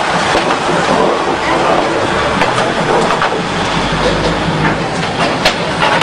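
Train passing along the tracks: a steady rumble and clatter of wheels on the rails, with sharp clicks in the second half.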